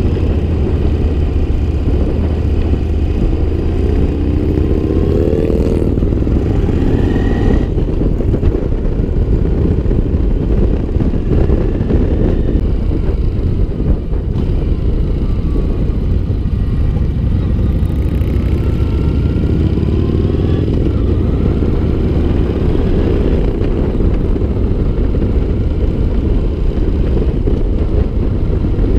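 Yamaha MT-01's 1670 cc air-cooled V-twin engine running at road speed, heard from the rider's seat. The revs rise about four seconds in and again about twenty seconds in.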